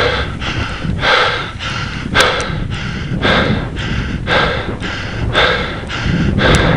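A cyclist's heavy panting breaths, about one loud breath a second, over a steady low rumble. He is labouring hard up a steep hill climb.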